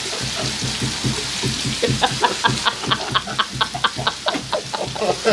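Rain falling steadily, with a quick run of short pitched sounds, about four a second, starting about two seconds in.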